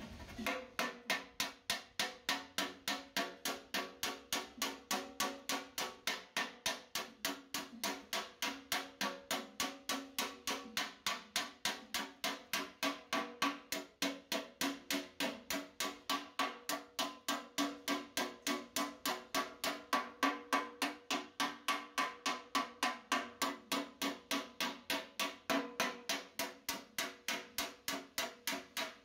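Steady, even hammering on sheet metal, about three blows a second, each blow leaving a short metallic ring.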